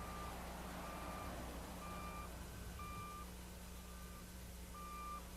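Reversing alarm of a construction vehicle beeping about once a second, faint, over a low steady engine hum.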